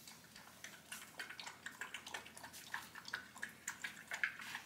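Golden retriever puppy lapping water from a stainless steel bowl: a quick, irregular series of small wet laps and drips, several a second.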